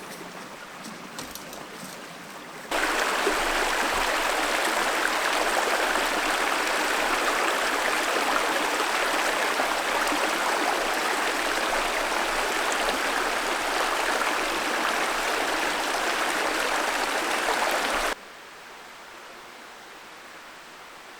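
Steady rush of running water that starts suddenly about three seconds in and cuts off sharply near the end.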